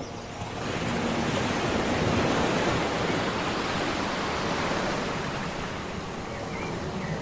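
Sea surf: a wave's rush that swells over about a second, is loudest about two seconds in, then slowly dies away.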